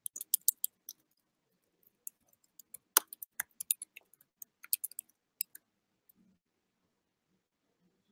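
Computer keyboard keys clicking in short, irregular bursts of typing, with a pause of about a second after the first burst and the loudest keystroke about three seconds in.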